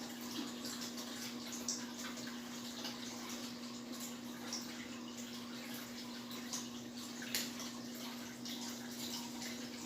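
Steady room hum and hiss with a few faint, short clicks and rustles, as a curtain is hooked and adjusted on its rod.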